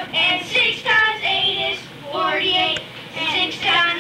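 A boy singing a times-table song solo, in short sung phrases with brief breaks between them.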